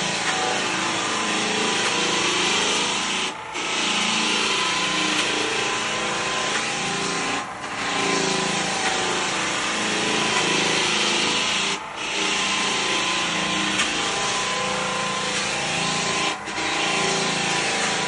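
Floor machine working over wooden terrace decking, a steady rubbing hiss of abrasive on wood, with short dips about every four seconds.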